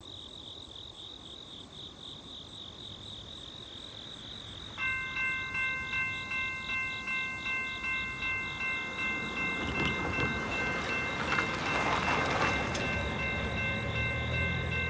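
Railroad grade-crossing warning bell begins ringing about five seconds in: a bright multi-tone ding pulsing roughly twice a second as the crossing activates and the gates come down. A rushing noise swells from about ten to thirteen seconds in, and a low horn-like drone from the approaching train starts near the end.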